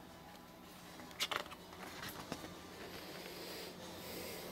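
Faint paper rustle and a few soft clicks as a large page of an oversized hardcover art book is handled and turned.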